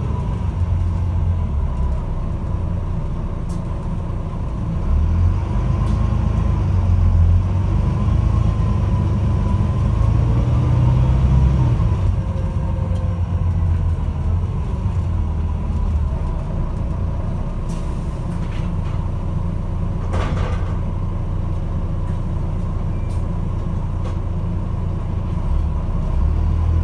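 A Volvo B9TL double-decker bus's diesel engine heard from inside the lower deck: a low, groaning rumble that swells a few seconds in, eases off past the middle and rises again near the end as the bus drives on. A single sharp knock comes about three-quarters of the way through.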